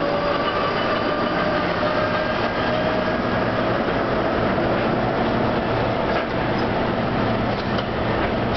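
A 2TE116 diesel locomotive's V16 diesel engine running steadily close by, with a whining tone that rises slightly in pitch over several seconds.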